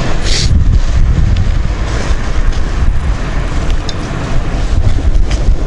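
Wind buffeting the microphone: a loud, irregular low rumble, with a brief rustle about a third of a second in.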